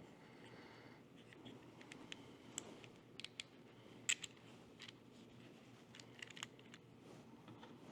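Faint, scattered small clicks and taps of small screws and a plastic finder-scope bracket being handled, with one sharper click about four seconds in.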